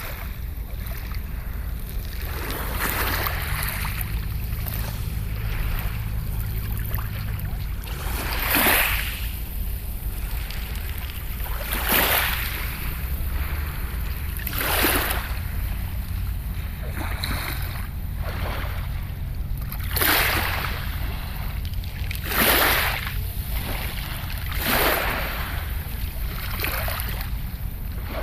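Sea waves breaking and washing in, a surge every few seconds over a steady low rumble.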